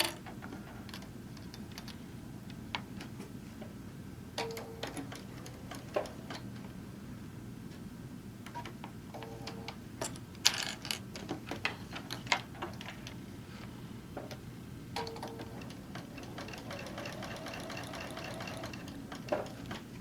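Electric sewing machine stitching a seam in short runs, steadiest in the last few seconds, with clicks from handling the fabric and clips between runs. Three short beeps come at roughly five-second intervals.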